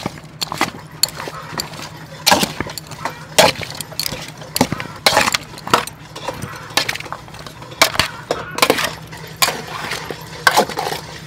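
Raw chicken feet being tossed and mixed in an aluminium bowl, by hand and with metal tongs: irregular clinks and knocks against the metal, some sharper than others, spaced from a few per second to about one a second.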